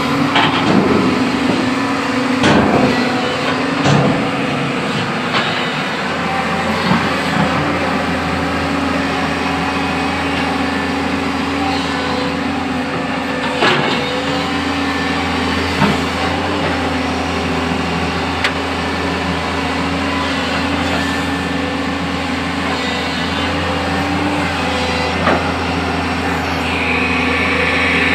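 JCB backhoe loader's diesel engine running steadily under work, with a few sharp metallic knocks. A higher hiss comes in near the end.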